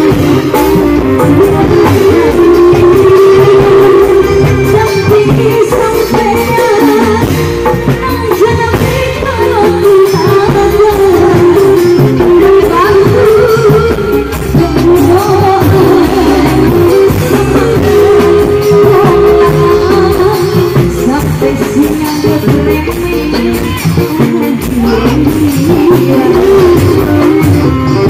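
Live dangdut music from a street band, with a woman singing through a microphone over a steady beat.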